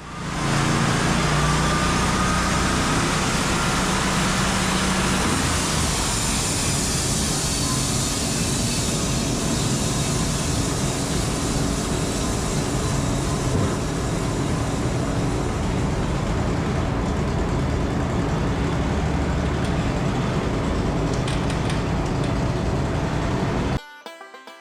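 Engine-driven heavy machinery running loudly and steadily, cut off abruptly near the end.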